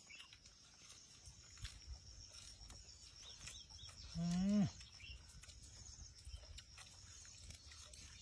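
Faint steady high-pitched insect chirring from the grass, with a few light clicks. About four seconds in, one short vocal hum lasting about half a second drops in pitch as it ends.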